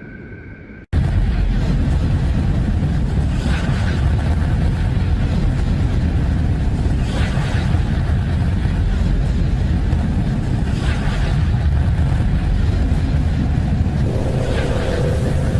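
Space sonification presented as the sound of a planet: a deep, steady rumbling drone that starts abruptly about a second in, with a hissing swell that rises and fades about every four seconds. Before it, a quieter drone of two steady high tones is cut off.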